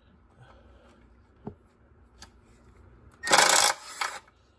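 A hand ratchet turning a swivel socket on the engine: a few light clicks, then a loud half-second rasp of fast ratcheting just over three seconds in and a shorter, quieter one right after.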